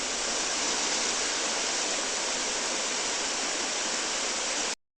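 Steady rushing of a swollen, flooding river's water, which cuts off suddenly near the end.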